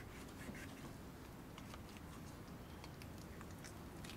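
Faint, scattered small clicks and wet handling sounds of a knife and hands working on a beaver carcass during butchering.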